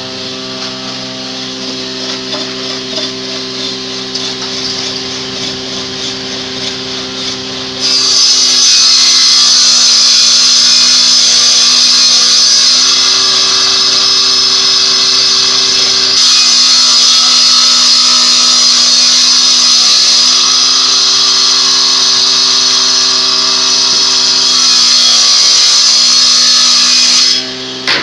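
Power woodworking machine running with a steady motor hum, then cutting into wood with a loud hissing rasp from about eight seconds in until it stops suddenly near the end.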